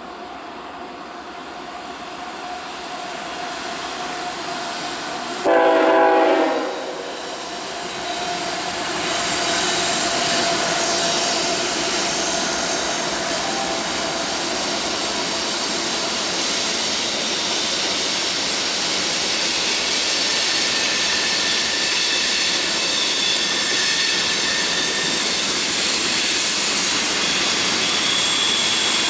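CSX freight train with GE locomotives (ET44AH leading) approaching and passing overhead on a stone viaduct. The rumble builds, then one short, loud multi-note horn blast sounds about five and a half seconds in. After that comes the steady rumble and clatter of the locomotives and freight cars rolling across.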